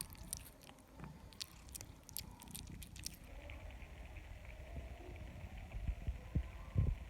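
A cat chewing its food, with a quick run of sharp clicking bites in the first three seconds, then softer chewing and a few low thumps near the end.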